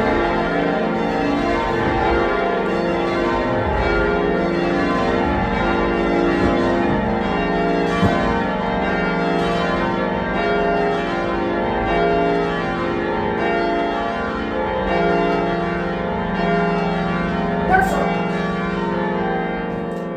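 A ring of eight church bells, mostly 1937 Gillett & Johnston castings with a tenor in F, rung in changes: a steady, continuous stream of bell strikes with overlapping tones.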